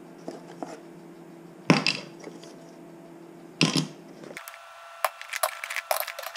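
Thin plywood cutouts dropped onto a plywood hull frame: two sharp wooden clacks about two seconds apart, then a quick run of lighter clattering as more pieces land on the pile near the end.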